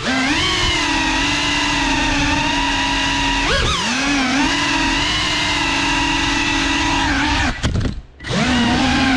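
Motors and propellers of a Cinelog 35 cinewhoop FPV drone whining steadily in flight. The pitch swings up and back down about three and a half seconds in. Near the end the sound drops away for under a second, then comes back.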